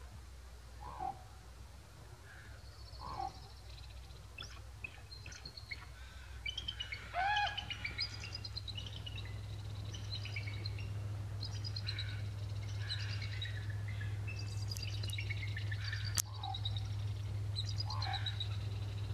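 Bald eagles calling: series of high, thin, chittering notes in quick succession, one series after another and more frequent from about the middle on. A few lower single calls fall in between, over a steady low hum.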